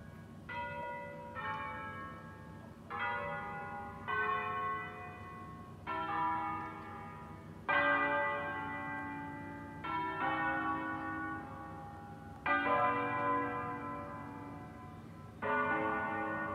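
Church bells of the Basilica of Sant'Alessandro in Colonna playing 'a concerto', the Bergamo way of ringing a tune on a set of tuned bells: about nine slow single strokes on bells of different pitch, one to three seconds apart, each left ringing on into the next.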